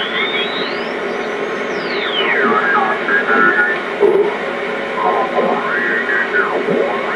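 Hallicrafters S-38E shortwave receiver tuning across a band: steady static hiss with heterodyne whistles that glide up to a high pitch and back down, and snatches of garbled signal between them.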